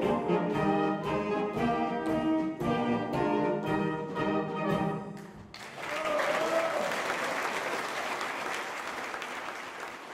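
A wind band of brass, saxophones and drum kit plays the last bars of a piece over a steady beat of about two strokes a second, ending about five and a half seconds in. The audience then applauds, with a single cheer, the applause slowly fading.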